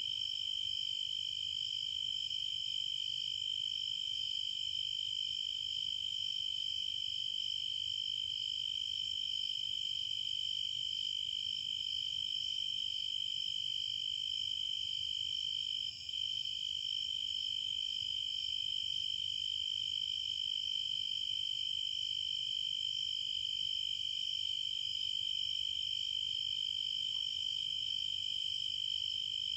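Steady chorus of insects: a continuous high-pitched trill that holds level throughout, with a momentary dip about halfway.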